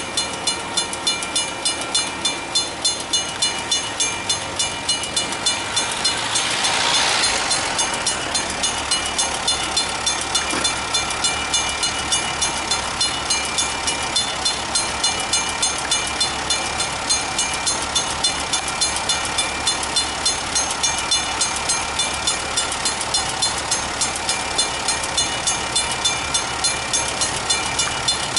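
Level-crossing warning bell ringing in rapid, even strokes, about three a second, while the barriers are down and the red lights flash. About seven seconds in, a swelling and fading hiss passes over it.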